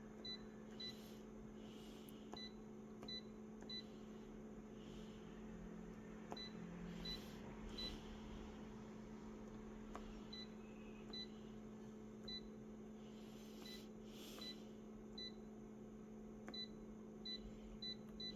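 Faint, short, high electronic beeps repeating at uneven intervals over a steady low hum, with a few soft rustles.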